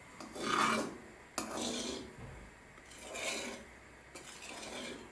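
A metal spoon stirring thick, foaming strawberry jam in a metal kazan pot, scraping along the pot. There are four swishing strokes about a second apart, the last one weaker.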